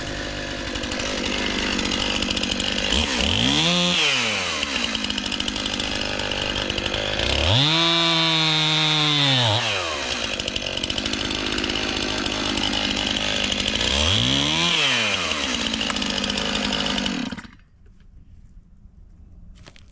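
Chainsaw cutting into a tree trunk. Its motor speed swells and drops back three times, and it cuts off suddenly near the end.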